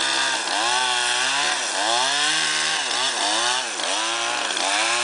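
Chainsaw cutting through the top of a star pine's trunk, its engine pitch sagging under load and picking back up about once a second as the cut is worked slowly.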